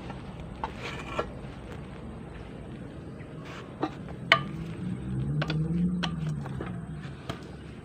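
Scattered metal clicks and knocks of manual gearbox parts and tools being handled during disassembly, the sharpest about four seconds in, over a steady low hum. A low drone swells and fades between about five and seven seconds in.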